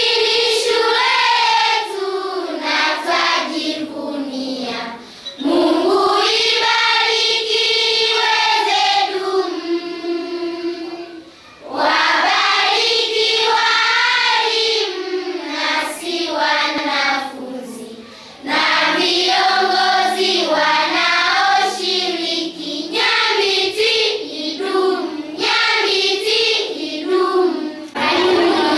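A group of children singing a song together, in sung phrases with short pauses between them.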